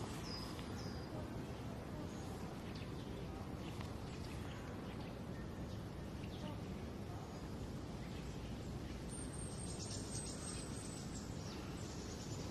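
Steady outdoor ambient noise with small birds chirping a few times near the start. A thin, high, slightly falling whistle sounds from about nine to eleven seconds in.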